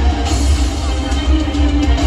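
Loud music with a heavy, pulsing bass beat and drums.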